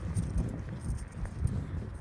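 Strong storm wind buffeting a phone microphone in a low, uneven rumble, with faint light clicks over it.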